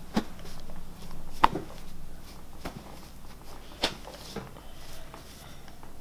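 A few sharp clicks with soft rustling between them as hands work the head and neck of a person lying on a treatment table. The loudest, sharpest click comes about a second and a half in, another near four seconds.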